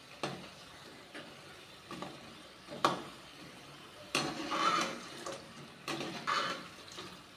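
Beetroot pakodas sizzling as they deep-fry in hot oil in a metal kadai, with a perforated metal skimmer scraping and knocking against the pan as the fritters are turned. The strikes come several times, loudest about four and six seconds in.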